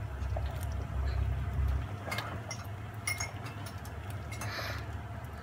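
A plastic spoon stirring a thick coconut-milk mixture in a stainless steel pot, with scattered clinks and scrapes against the pot's side. A low steady hum underneath drops off about two seconds in.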